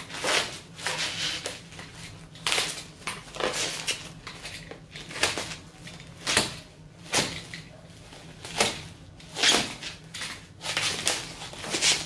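Bubble-wrap packaging being handled and torn open, crinkling and crackling in irregular bursts.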